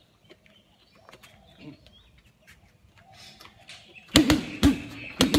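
Boxing gloves punching a heavy bag: about four seconds in, five loud thudding blows land in quick pairs. Faint bird calls come before them.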